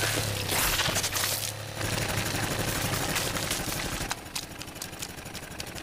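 Commercial bread-slicing machine running: a steady motor hum under a rapid mechanical chatter, which drops away about four seconds in.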